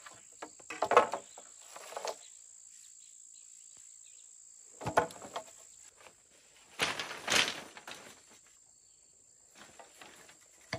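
Insects chirring in a steady high-pitched drone, with four short scraping or rustling noises of work, the longest about seven seconds in.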